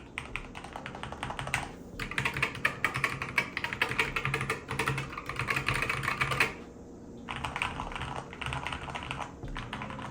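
Mechanical keyboard being typed on quickly, dense runs of key clicks with a short break a little past halfway. It is a reference keyboard held up as how a keyboard should sound.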